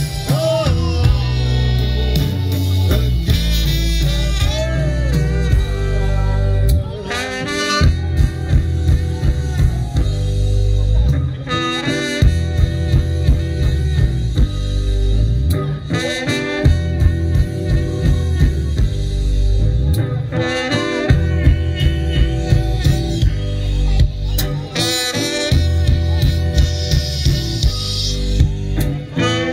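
Live band playing an instrumental passage: electric guitars, bass and drums, with a clarinet playing melody lines over them.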